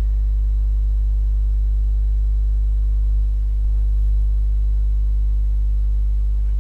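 A steady low hum with a held drone of several tones above it, unchanging throughout.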